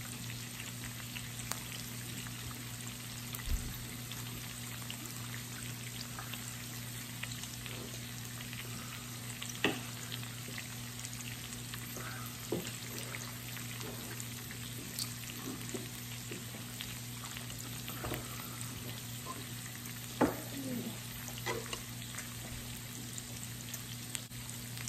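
Pork belly and other meat sizzling steadily on a Hamilton Beach electric raclette grill. A constant frying hiss is dotted with small crackles, and a few louder sharp clicks come now and then.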